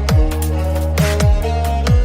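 Instrumental electronic pop backing with no vocals: deep booming kick drums that drop sharply in pitch, about three in two seconds, over sustained synth bass and steady synth chords, with cymbal ticks.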